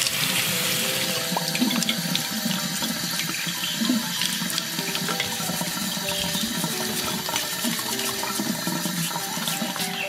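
Water running steadily from a tap.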